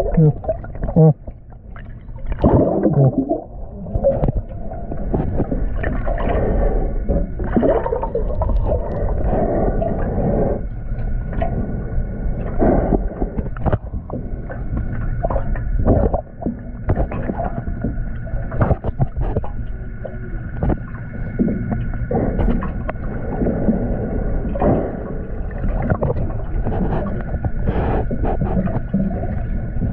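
Muffled underwater sound heard through a GoPro's waterproof housing: a steady low rumble with gurgling bubbles and irregular knocks, and faint steady whining tones from about ten seconds in.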